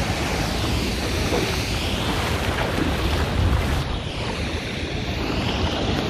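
Steady rush of flowing river water and a distant waterfall, with wind rumbling on the microphone.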